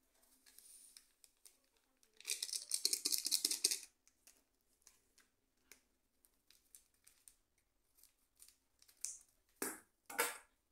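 A sachet of dry yeast crinkling as it is handled and cut open with scissors: a dense crinkling burst about two seconds in that lasts nearly two seconds, then scattered small clicks. Near the end come two short rustles as the yeast is shaken out of the sachet.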